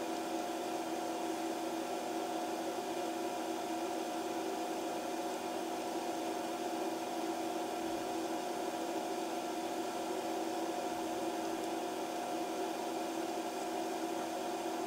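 Steady mechanical hum: a few held tones over an even hiss, unchanging throughout.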